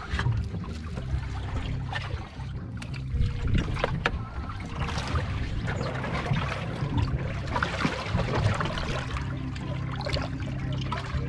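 Seawater sloshing and trickling against the stern of a boat, with scattered small splashes. A low, steady motor hum runs underneath.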